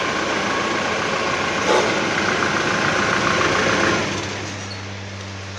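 A motor-driven machine running with a steady whine over a loud rushing noise. About four seconds in it winds down, leaving a low steady hum.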